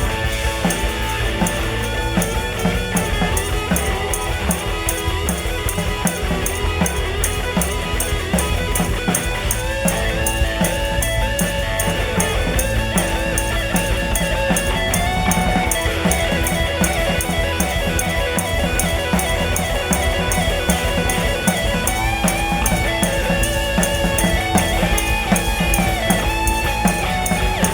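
Rock band playing an instrumental outro: drum kit with fast, steady cymbal hits under electric guitars playing a melodic lead line.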